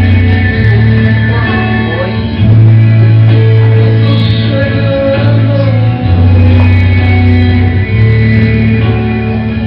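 A song with singing over guitar, carried by long held bass notes that change every second or two.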